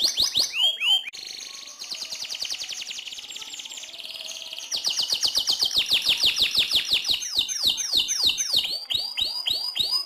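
Domestic canary singing a long rolling song: fast trills of repeated high notes, softer for a few seconds after about a second, then loud again, ending in a run of slurred downward-sweeping notes.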